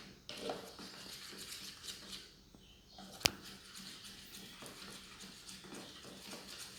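White glue and shaving foam being stirred together in a pot for fluffy slime: faint, irregular sticky squishes and scrapes, with one sharp click a little over three seconds in.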